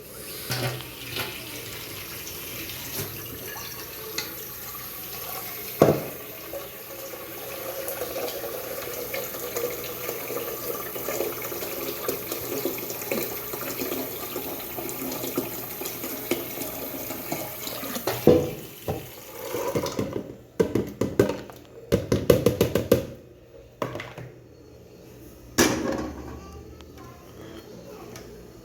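Tap water running steadily into a kitchen sink. It stops about eighteen seconds in, and a string of knocks and clatters from things being handled follows.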